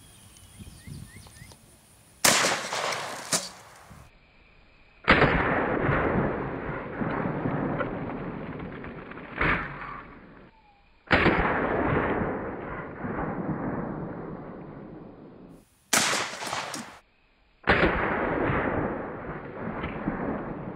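12-gauge shotgun firing steel slugs: about six sudden loud blasts, several of them trailing off in long rolling echoes over a few seconds.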